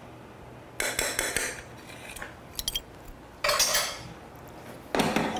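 A metal spoon clinks and scrapes against a small stainless-steel saucepan in several short bursts, stirring condensed milk into thickened cream.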